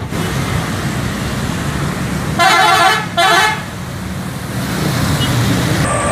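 Bus horn sounding two short blasts, with a longer horn note starting near the end, over the rumble of road traffic and engines.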